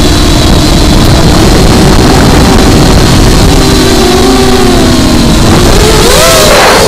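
Motor of a low-flying aircraft running, its pitch wavering up and down, heard close on board under heavy wind rush. About six seconds in, the pitch climbs and a surge of rushing air swells briefly.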